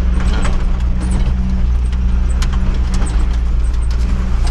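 1989 Jeep Wrangler YJ's engine running with a steady low drone while it crawls a rough dirt trail, with scattered clicks and knocks from the bouncing vehicle.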